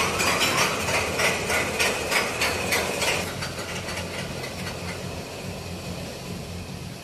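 Roller coaster train climbing its lift hill: a rapid, even clacking of the anti-rollback ratchet over a low steady hum of the lift. The clacking fades after about three seconds as the train climbs away.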